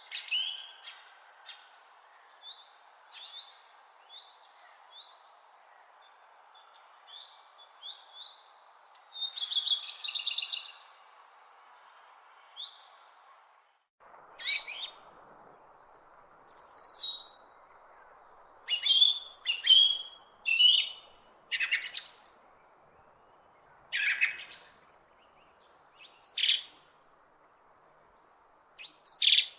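Wild birds singing: a run of short chirps and a buzzy trill, then, after an abrupt change about halfway through, louder and more frequent calls, all over a faint steady hiss.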